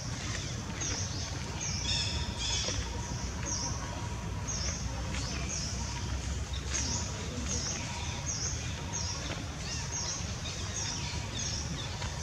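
A bird repeating one short, high chirp at an even pace, about three every two seconds, over a steady low background rumble.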